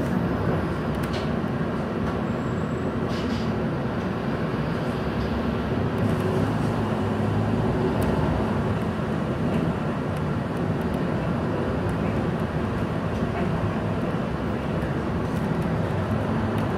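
Cabin sound of a MAN NL323F Lion's City bus moving slowly: its rear-mounted inline-six diesel engine and drivetrain running steadily, with a few faint light clicks and rattles.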